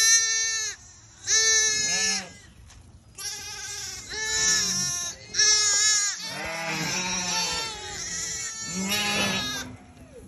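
Shetland sheep bleating: a string of about a dozen calls, high lamb bleats mixed with lower ewe calls, often overlapping. Lambs and ewes calling back and forth as the lambs look for their mothers.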